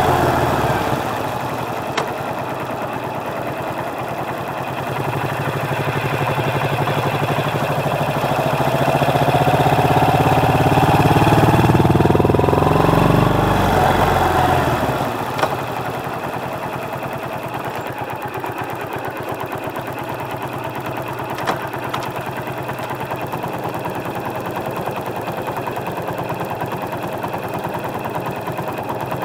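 Motorcycle engine picked up by a microphone under the seat: the engine note climbs steadily for several seconds as the bike accelerates, the throttle closes about halfway through, and it settles into a steady idle with the bike stopped.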